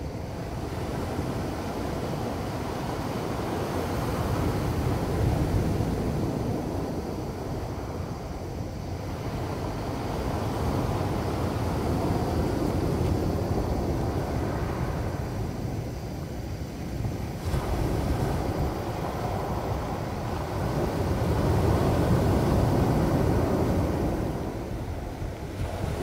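Sea surf breaking and washing up a cobble beach, swelling and falling away in a slow rhythm of about one surge every five or six seconds.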